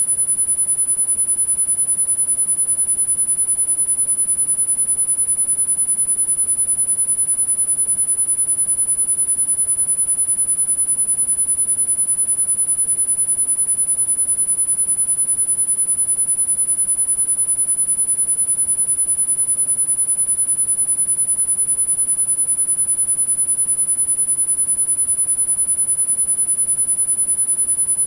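A single very high-pitched pure sine tone held steady without any change: a tinnitus-masking frequency tone.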